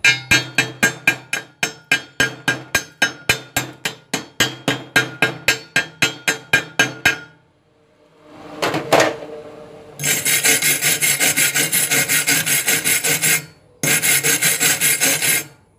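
Chipping hammer knocking slag off a fresh stick weld bead on thin steel tube, sharp metal taps at about four a second for some seven seconds. It is followed by a wire brush scrubbing the bead in two long, fast strokes-runs with a short break between.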